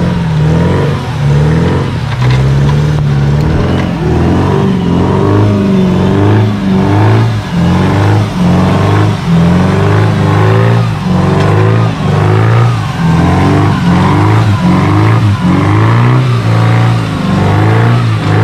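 Off-road 4x4 jeep's engine revved hard over and over at full throttle as it churns through deep mud, the pitch rising and falling about once or twice a second.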